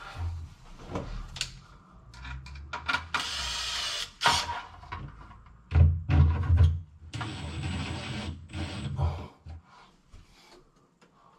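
Fixing the radio link base into plasterboard: scraping and handling knocks, with a steady whirring of about a second three seconds in and a louder spell of whirring with a high whine from about six to nine seconds in, as screws are driven home.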